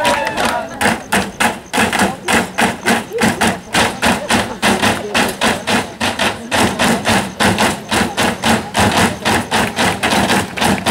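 A group beating on wooden tables in unison, a steady rhythm of sharp knocks at about four a second, with voices underneath.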